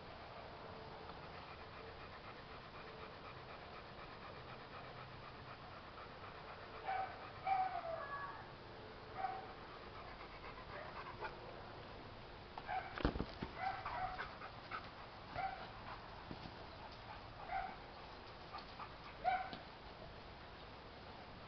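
Rottweiler panting, with a string of short high-pitched calls from about seven seconds in and a single sharp knock about halfway through.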